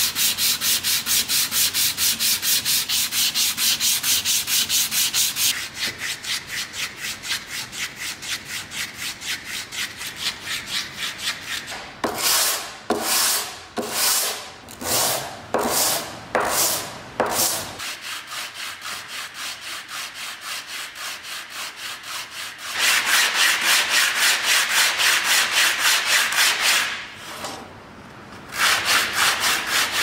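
Sandpaper rubbed back and forth by hand on a weathered wooden coffee-grinder part, in quick, even strokes. About midway it changes to a handful of slower, longer strokes, then goes quieter before quick strokes pick up loudly again, with a short pause near the end.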